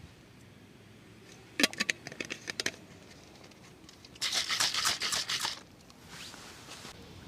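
Close-up handling sounds from camp food preparation: a quick run of sharp clicks and taps about a second and a half in, then about a second and a half of scraping or rustling, the loudest part.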